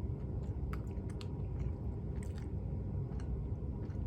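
A person chewing a mouthful of soft red bean paste bread close to the microphone, with small irregular mouth clicks, over a steady low rumble.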